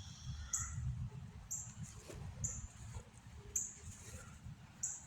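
Faint insect chirping: a short high-pitched pulse that repeats about once a second.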